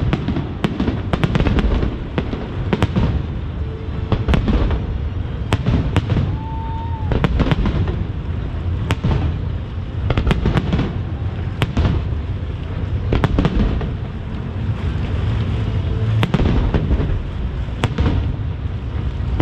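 Aerial firework shells bursting in quick succession: sharp reports and crackles several times a second over a steady low rumble.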